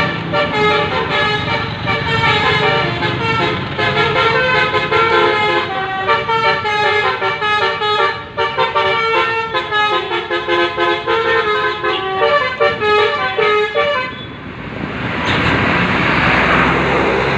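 Bus telolet horn, a Basuri multi-tone air horn set, playing a fast melody of short notes that change pitch several times a second, then cutting off abruptly about fourteen seconds in. A loud rushing noise follows until the end.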